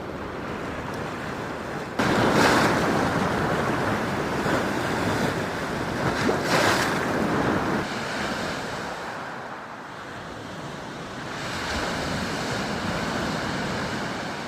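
Black Sea waves breaking and washing over the shore. The sound jumps up suddenly about two seconds in, swells twice over the next few seconds, then eases and builds again near the end.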